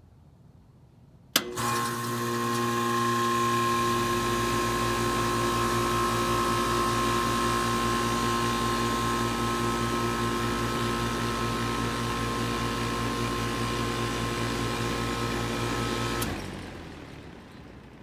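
Carrier 38CKC central air-conditioner condensing unit starting up: a sharp click as the contactor pulls in about a second and a half in, then the compressor hums with steady tones, and a deeper rush builds over the next few seconds as the condenser fan comes up to speed. It runs steadily, then stops with a click about sixteen seconds in and dies away.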